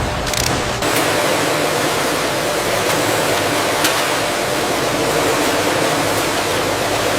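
AI-generated factory machinery ambience: a steady rushing hiss with a faint hum underneath. The sound changes character about a second in, and there is a single faint tick later on.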